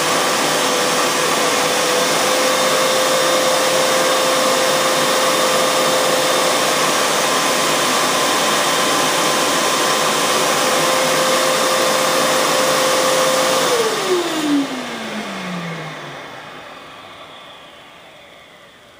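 VAX Rapide Ultra 2 (V90-RU-P) carpet washer's suction motor running with a loud, steady whine. About three-quarters of the way through, a couple of clicks are heard as it is switched off, and the motor winds down, its whine falling in pitch over about two seconds while the noise fades away.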